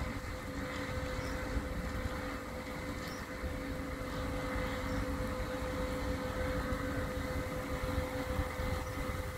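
Plough dredger's engine drone carrying across the water: a steady, even hum with a constant tone and a low rumble beneath it.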